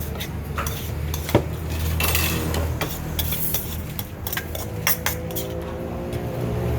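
Metal spoons and utensils clinking against dishes and bowls in irregular clicks over a steady low hum, as salads are mixed and plated.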